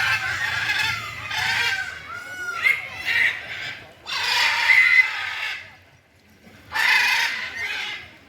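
Geese honking: a quick run of repeated calls, then two louder, harsher calls about four and seven seconds in.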